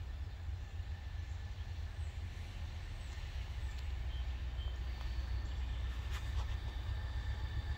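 Outdoor ambience: a steady low rumble with a few faint bird chirps, and loudness creeping up slightly toward the end.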